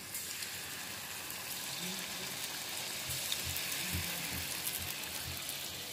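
Flour-and-sugar pitha dough balls deep-frying in hot oil in a pan, giving a steady sizzle with fine crackling.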